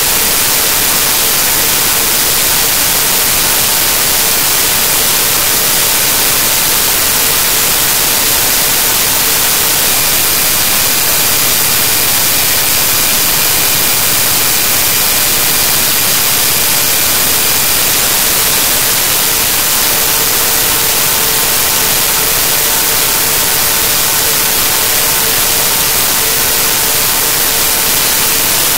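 Loud, steady static hiss with nothing else in it, the noise of a corrupted digital recording. A faint steady tone runs underneath, and a few faint high tones join in for several seconds in the middle.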